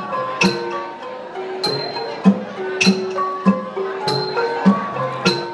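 Lao traditional ensemble music: boat-shaped wooden ranat xylophones play a running melody of struck notes, with small ching hand cymbals ringing on a steady beat about every second and a barrel drum keeping time underneath.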